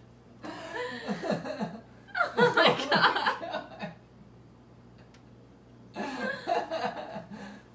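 A person chuckling and laughing in three bouts, with a pause of about two seconds before the last.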